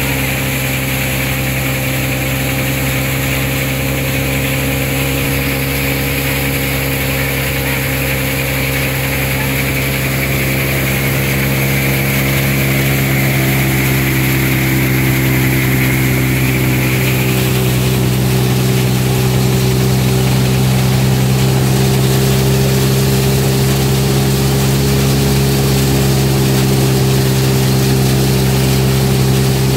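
Tractor-mounted grain thresher running steadily under power from the tractor's diesel engine while threshed seed pours out of its chute. The engine's steady drone carries a high whine that fades out a little past halfway through.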